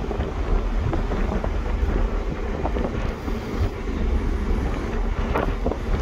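Wind buffeting the microphone on the open deck of a ferry under way, a steady rushing noise with a heavy low rumble.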